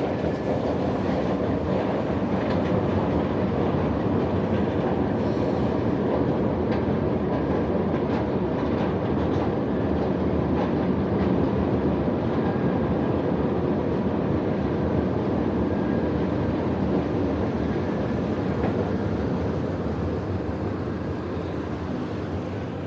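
Rail train running: a steady rumble of wheels on track that eases off slightly near the end.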